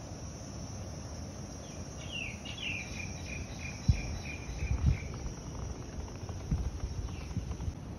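Steady high-pitched drone of tropical insects. About two seconds in, a bird calls: two quick falling notes, then a run of short repeated notes for a couple of seconds. A few low thumps fall in the second half.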